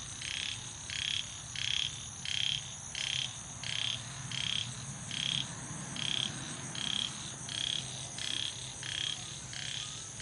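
Frog calls from the rice paddy, one call repeated evenly about one and a half times a second, over a steady high-pitched drone.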